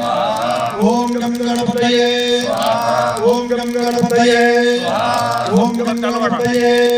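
Male voice chanting Sanskrit havan mantras on one steady reciting pitch, with short breaks every second or so.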